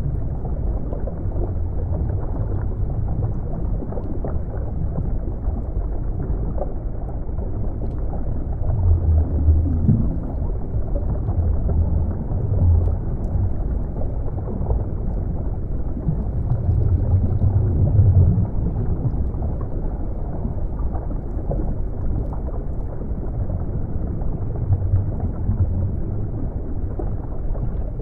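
Underwater ambience: a deep, muffled rumble of moving water that swells and eases every few seconds, with a brief rising tone about ten seconds in.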